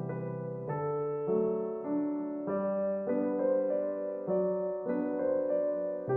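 Gentle background music played on a piano or electric piano, one note or chord after another at an even pace.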